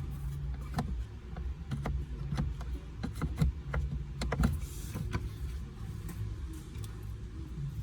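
A vehicle running with a steady low hum, over which come irregular sharp clicks and knocks, several a second at times.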